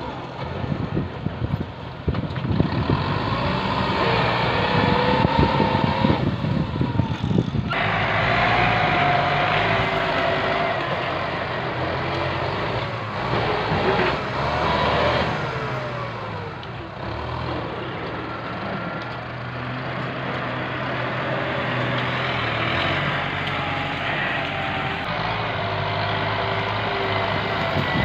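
Tractor diesel engine running under load as the tractor pushes through brush, its pitch rising and falling with the load. Dense crackling and snapping sound through the first several seconds.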